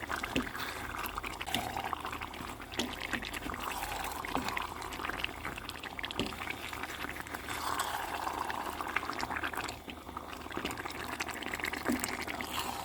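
A spoon stirring a thick, oily garden egg sauce in a pan: wet squelching and scraping, with many light clicks of the spoon against the pan.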